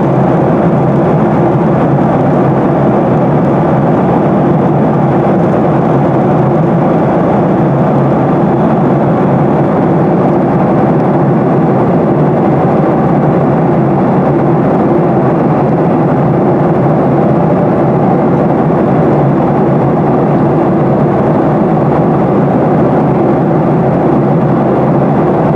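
Loud, steady rushing drone that stays even throughout, with no distinct events.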